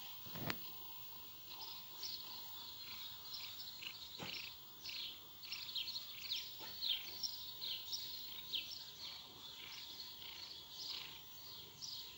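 Small birds chirping: a busy run of short, high, falling chirps that starts about a second and a half in, with a soft knock near the start and a couple more later.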